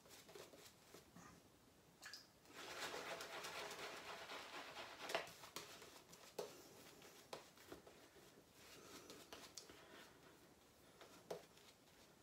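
Razor scraping through lathered stubble in a wet shave: a run of quiet rasping strokes about two seconds in, then fainter short strokes and a few light clicks.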